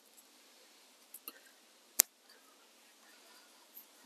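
Small scissors snipping the tied-off excess of a PVA solid bag: a couple of faint clicks, then one sharp snip about two seconds in.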